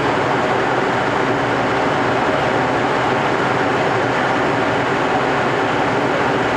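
JR Central 373 series electric multiple unit standing at the platform, its onboard equipment giving a steady whirring hum.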